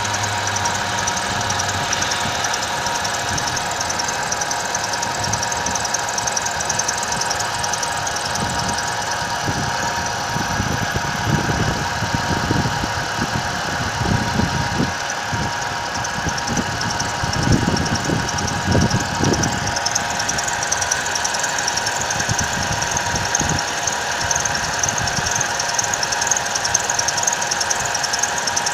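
Vehicle engine running with a steady high-pitched whistle throughout; the low engine sound swells several times in the middle.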